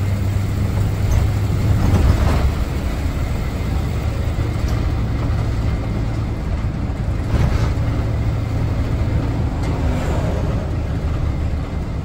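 Blue Bird Wanderlodge motorhome under way, heard from inside the cab: a steady low engine drone with road noise, and a couple of brief knocks or rattles about two and seven seconds in.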